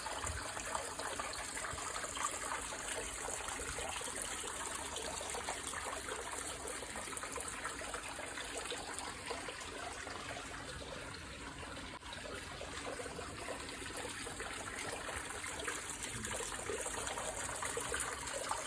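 Water trickling and splashing steadily in a small garden stream with a waterfall.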